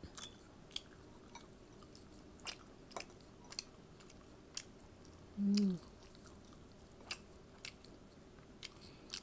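A person chewing food close to the microphone, with scattered small wet mouth clicks and smacks. About five and a half seconds in comes a short falling hum from the eater's voice.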